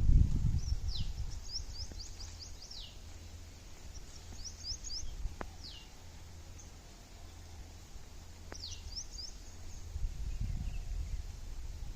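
Birds calling: clusters of quick high chirps and, about four times, a single whistled note falling in pitch. A low rumble underneath is heaviest at the start and again near the end.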